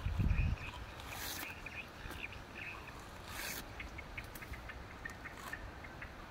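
Coconut husk fibres being torn off with the teeth: short scraping rips about every two seconds, after a low thump at the start.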